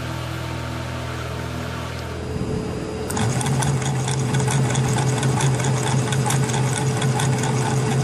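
Small 12 V DC motor of a homemade bucket washing machine starting up about three seconds in and running with a fast, even rattling whir, after a steadier low hum.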